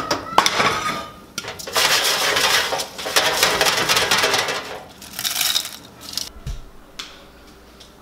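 A metal saucepan clanks and rings as it is set down on a gas stove's cast-iron grate. Then, for about three seconds, freshly popped popcorn rustles and crunches loudly on a foil-lined metal baking sheet as the sheet is handled, with a shorter burst of the same rustle about five seconds in.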